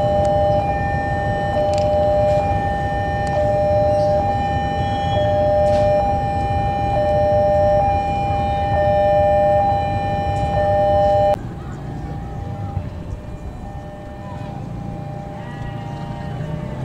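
Electric commuter train approaching with a low rumble under a steady high-pitched two-note squeal, cut off abruptly about eleven seconds in, leaving quieter outdoor background.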